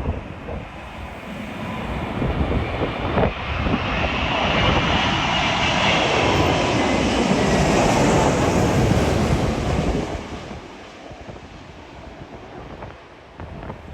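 An airliner's engines pass close by on a landing approach, swelling to a peak in the middle and fading after about ten seconds. Gusts of wind buffet the microphone near the start.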